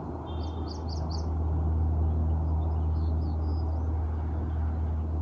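Birds chirping faintly, four quick high chirps about a second in and a few softer ones later, over a steady low hum.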